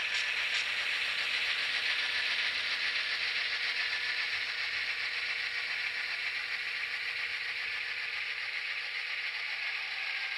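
Model train locomotive and freight cars rolling slowly along the track: a steady rattling hiss of metal wheels on rail and the locomotive's drive mechanism.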